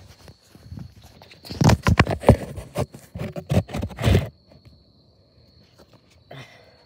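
Handling noise of a camera being moved and set down on an asphalt driveway: a few seconds of irregular scrapes and knocks that stop once it is placed, then near quiet.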